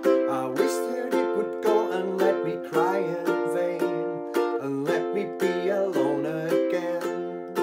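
Ukulele strummed in steady downstrokes, about two to three a second, changing chords as it goes. Each stroke is struck across the strings with a fingernail where the neck meets the body, which gives a bright, strident tone.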